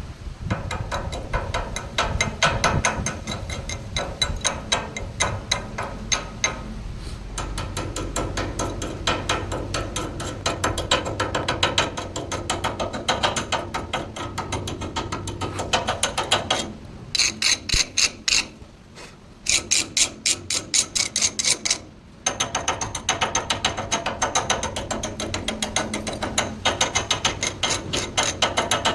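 Rapid, repeated metal-on-metal clicking strikes with a ringing tone, in long runs broken by short pauses a little past halfway.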